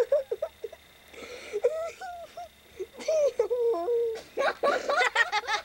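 High-pitched whimpering and squeaky whining: short, wavering cries that break off again and again, with a few breathy, wheezy gasps near the end.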